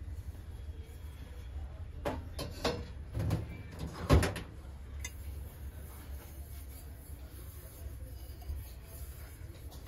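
Objects being handled: four short knocks and clicks between about two and four and a half seconds in, the last the loudest, over a steady low rumble.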